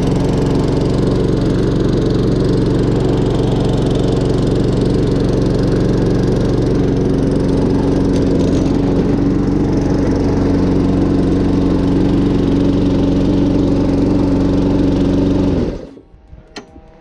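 Small Briggs & Stratton single-cylinder engine of a new walk-behind lawn mower running steadily at constant speed on its very first run, then cutting out suddenly near the end.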